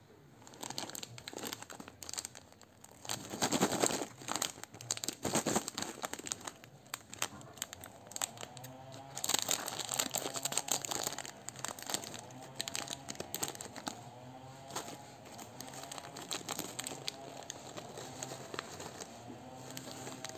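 Crinkly foil snack packet being handled and cut open with scissors: bursts of loud crinkling and crackling, strongest twice in the first half. Faint background music comes in from about halfway.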